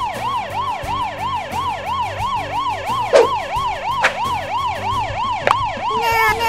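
Cartoon ambulance siren sound effect: a fast yelping wail rising and falling about four times a second, winding down into a falling glide near the end. A few sharp clicks sound over it.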